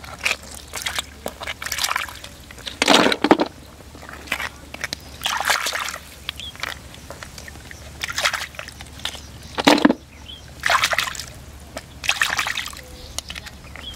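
Shallow water sloshing and splashing in irregular bursts every second or two as a person moves through it by hand or foot, with the two heaviest splashes about three seconds in and near ten seconds.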